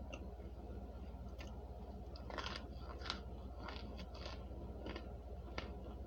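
A person chewing crisp, crunchy chunks close to the microphone: scattered sharp crunches, a few a second, mostly in the second half.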